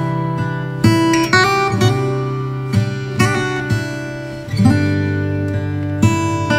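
Background music: acoustic guitar playing picked notes and chords, each struck sharply and left to ring.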